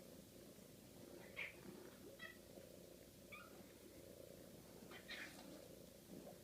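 Domestic cat purring steadily and quietly, with a few short high mews or chirps over it, four in all.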